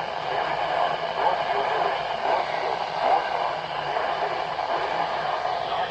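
Radio broadcast audio heavy with static, a voice muffled in the noise.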